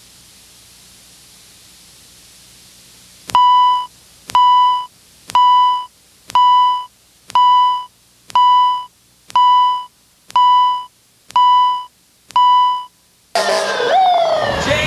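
Smoke detector alarm beeping ten times, about once a second, each beep a steady electronic tone. A faint hiss precedes the beeps, and music with singing starts just before the end.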